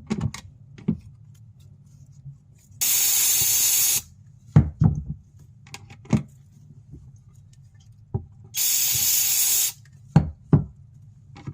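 Aerosol brake cleaner sprayed in two hissing bursts of about a second each, onto a clogged purge-valve filter to flush out carbon. Short knocks and clicks of the parts and can being handled come between the bursts.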